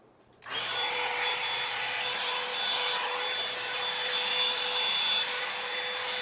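Revlon One-Step hair dryer and volumizer, a brush-shaped blow dryer, switched on about half a second in and running with a steady blowing rush and a constant motor whine.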